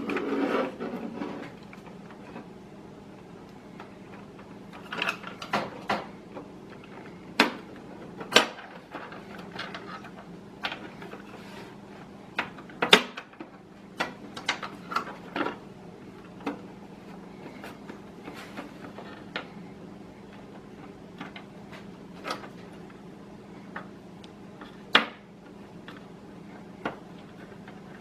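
Hands handling cables and a hard drive inside a PC case: scattered, irregular clicks, taps and rustles of plastic connectors and cable sleeves against the chassis, over a faint steady hum.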